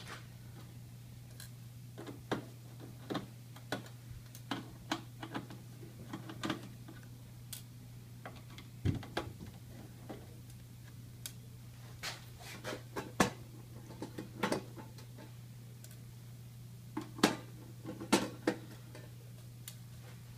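Irregular small clicks and taps of a screwdriver working flathead countersunk screws out of a panel and the screws being handled, over a low steady hum.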